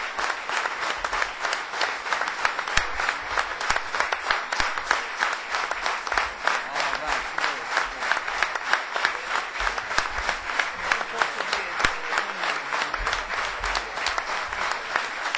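Large audience applauding, dense sustained clapping with crowd voices mixed in.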